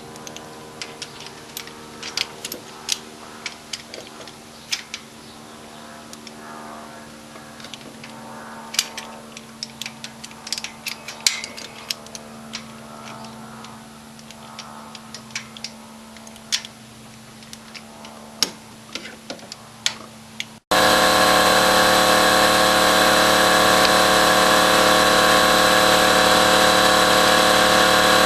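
Hand tools clicking and tapping against metal parts of a small-block Chevy cylinder head during valve spring removal, irregular light strikes over a low hum. About two-thirds of the way in, a much louder steady machine sound, most like a power tool running, takes over abruptly and holds.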